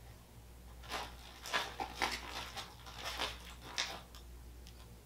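Clear plastic packaging crinkling and rustling in a run of crackly bursts from about a second in until about four seconds in, as items are pulled out of the bag.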